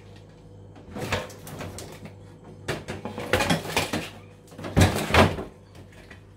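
Freezer drawer handling: a stainless steel bowl set down in a plastic freezer drawer with clattering knocks and scrapes, then the drawer slid in and pushed shut with two thumps about five seconds in. A steady low hum runs underneath.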